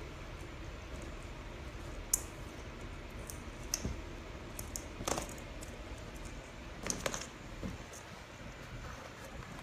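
A handful of scattered light clicks and taps as an Old English Sheepdog puppy mouths and paws at a hard plastic battery-powered ball toy.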